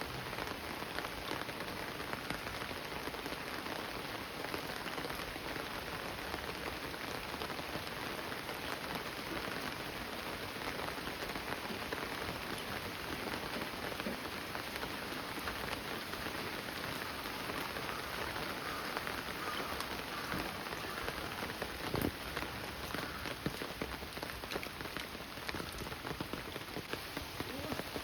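Steady monsoon rain falling on the ground and surrounding surfaces, an even hiss with nearby drops ticking now and then, one sharper tap about twenty-two seconds in.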